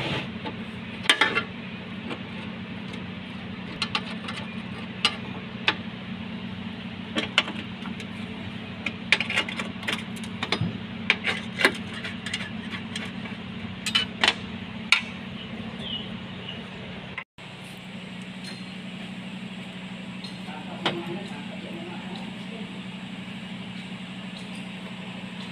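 Sharp metallic clinks of hand tools and bolts against a tractor's steel floor plate as it is unbolted, about a dozen spread over the first fifteen seconds, over a steady low hum.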